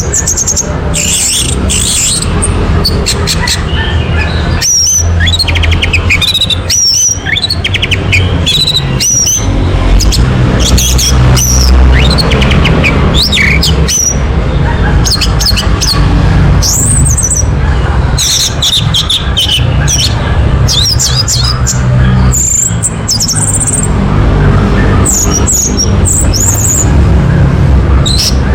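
Orange-headed thrush (anis merah) singing a rapid, varied song of high whistles and chirps, phrase after phrase with short gaps, over a steady low rumble.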